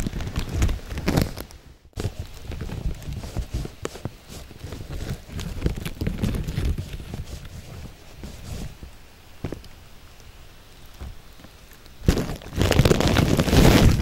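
Wind rumbling on a handheld camera's microphone with handling knocks, cutting out briefly about two seconds in and growing louder for the last two seconds as the camera is swung away.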